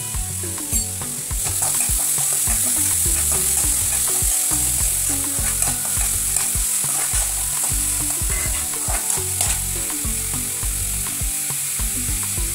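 Chopped onion, ginger and garlic with crushed whole spices sizzling in hot coconut oil in an aluminium kadai, a steady frying hiss. A steel spoon stirs through it, scraping and clicking against the pan.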